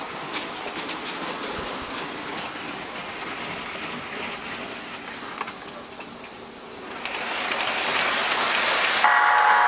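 O-gauge model train rolling on three-rail track, a steady clicking rumble that grows louder from about seven seconds in as the MTH Amtrak Genesis locomotive and passenger cars approach. Near the end the locomotive's horn sounds.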